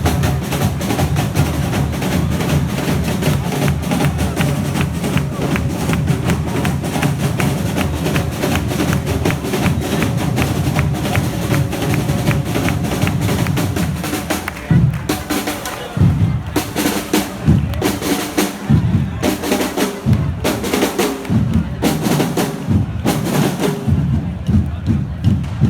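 Correfoc drum band (tabals) playing a fast, dense rolling rhythm. About halfway through it breaks into separate loud strikes with short gaps between them.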